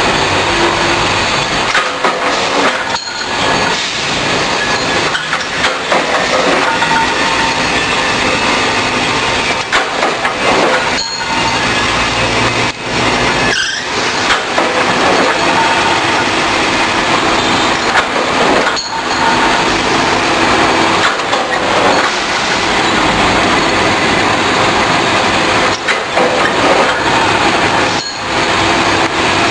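Loud, continuous noise of metalworking machinery running, with several short breaks where it drops out briefly.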